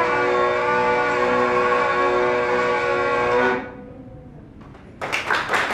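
Folk band holding the final chord of a tune, with a hurdy-gurdy's steady drone and acoustic guitar, which stops about three and a half seconds in. After a short lull, applause breaks out near the end.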